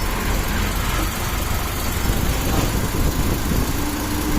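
Bus engine running, heard from inside the passenger cabin as a steady low rumble; a thin steady hum joins near the end.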